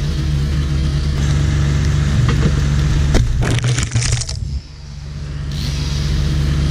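Chainsaw running hard while felling a dead beech. About three seconds in comes a quick series of loud cracks and crashing as the trunk breaks and goes over. The saw then drops away and builds back up.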